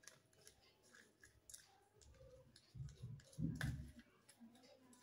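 A plastic spoon scraping and clicking in a small plastic cup as a damp, powdery bath-bomb mixture is stirred, with a louder low thump about three seconds in.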